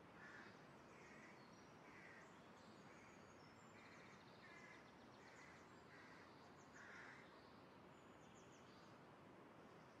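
Faint outdoor ambience: a low steady hiss with a distant bird calling in short notes about once a second, and fainter high chirps.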